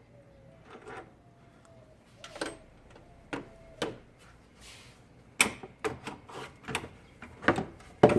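Hard plastic knocks and clatters as the stock airbox of a 392 Challenger is worked loose and pulled out of the engine bay. A few separate knocks come first, then a quicker run of louder knocks in the last few seconds.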